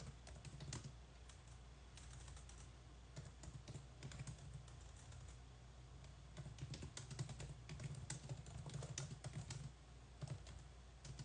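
Typing on a computer keyboard: faint, irregular runs of key clicks, busier in the second half.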